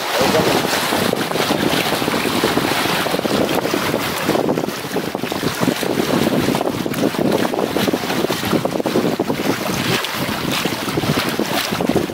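Sea water washing and splashing around rocks at the water's edge, with wind buffeting the microphone in a steady, loud rush.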